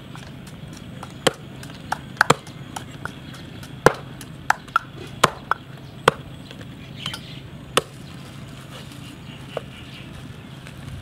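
A long wooden pestle pounding herbs in a mortar, giving sharp, irregularly spaced knocks that mostly fall in the first eight seconds.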